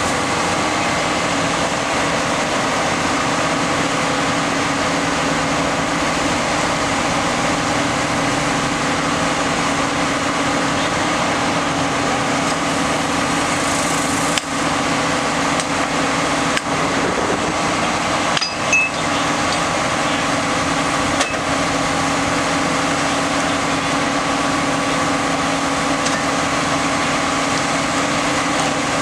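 A flash-butt rail welding truck's power unit runs steadily with a constant droning hum, with a few faint metallic clinks near the middle.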